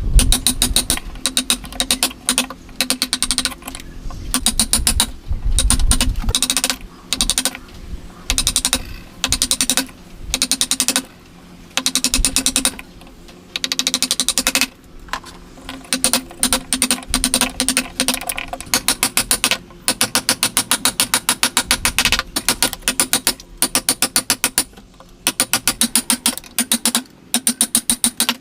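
A hand saw cutting wood in repeated strokes. Each stroke is a burst of rapid ticking as the teeth catch the grain, with short pauses between strokes.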